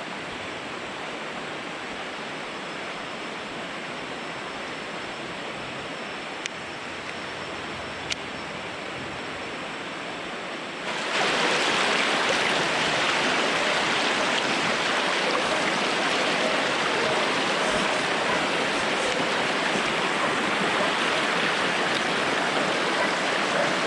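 A shallow stream rushing steadily. About eleven seconds in, the water noise becomes suddenly louder and brighter and stays that way.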